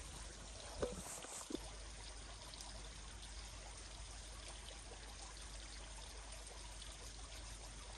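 Faint, steady trickle of running water, with two small knocks about a second in.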